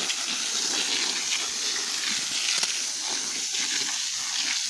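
Garden hose spraying water over plants and ground: a steady hiss.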